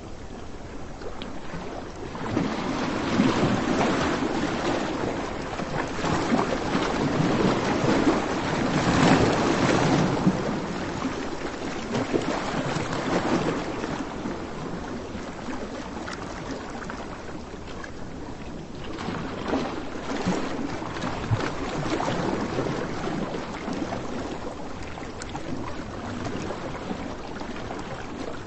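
Beach surf: waves breaking and washing in, in slow surges several seconds apart, with some wind.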